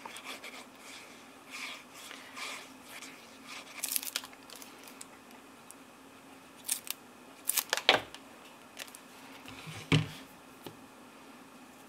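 Cardstock rustling and tapping on a cutting mat while liquid glue is squeezed onto it from a bottle. A few sharp clicks come about seven to eight seconds in, and the loudest sound is a knock near ten seconds, as the card piece is picked up.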